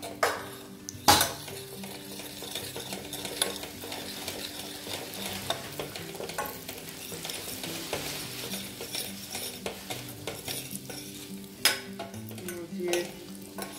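Red chillies and deggi mirch powder sizzling in hot desi ghee for a tadka, while a steel ladle stirs and scrapes in a stainless steel saucepan. There are sharp clinks of ladle on pan, the loudest about a second in and another near the end.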